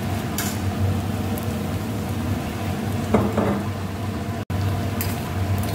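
Sauce-coated paneer and onions sizzling steadily in a wok over a gas flame, over a low hum, with a few light clicks.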